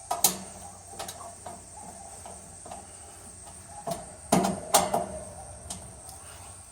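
A handful of sharp clicks and knocks of tools and metal parts being handled on an air-conditioner condenser unit under repair, the loudest near the start and two close together about four and a half seconds in.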